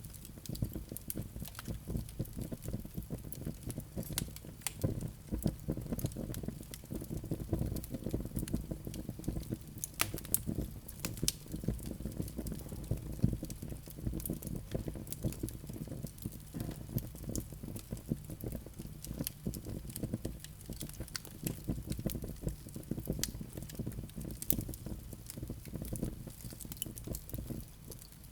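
Wood fire crackling, with many sharp pops and snaps over a low fluttering rumble of flames; the loudest pops come about ten and thirteen seconds in.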